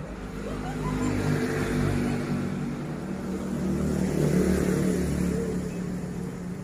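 A motor vehicle's engine running, a low steady hum that swells about a second in and again around four seconds.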